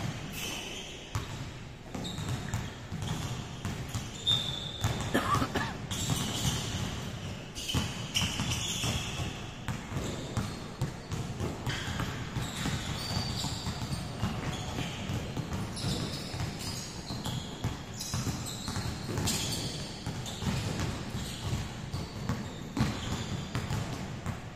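Several basketballs dribbled and bouncing on a hardwood gym floor, a steady patter of thuds with short high sneaker squeaks and scattered voices, echoing in a large hall.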